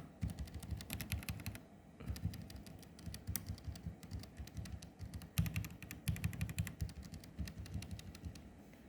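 Typing on a Vortexseries GT65 LTE mechanical keyboard fitted with linear Huano Red switches and Cherry-profile doubleshot keycaps. Fast runs of keystroke clacks come in several bursts, with short lulls about two seconds in and around the middle.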